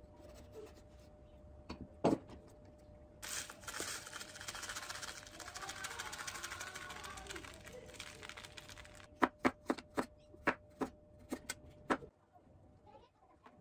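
A seasoning packet crinkling as dry seasoning is shaken out of it over potato slices, followed near the end by a chef's knife slicing potato on a wooden cutting board: about nine quick, sharp chops.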